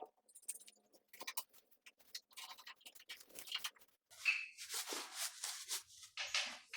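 Rustling and scratching handling noises with small clicks, turning into longer, denser rustles in the second half.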